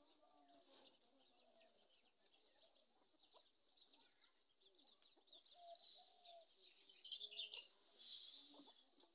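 Faint birds chirping and chickens clucking. Near the end comes a brief hiss as paddy is poured out of a basket onto a pile.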